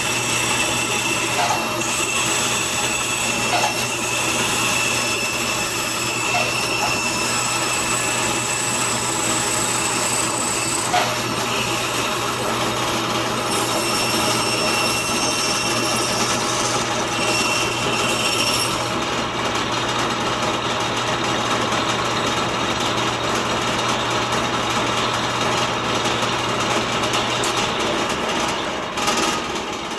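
Band saw running steadily while cutting letters out of walnut, a constant motor hum under the noise of the blade in the wood; the sound dips briefly near the end.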